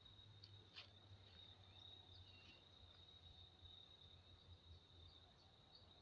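Near silence with a faint, steady high-pitched insect trill, one unbroken tone.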